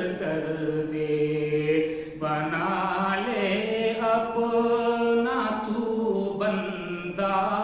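A man's solo voice chanting an Urdu devotional nazm unaccompanied, drawing out each line in long held notes that slide from one pitch to the next.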